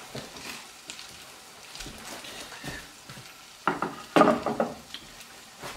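Hot oil sizzling faintly in a frying pan just taken off the gas, then, about four seconds in, two short clattering knocks as a plate is set down on the cooker's grates beside the pan and the pan is handled.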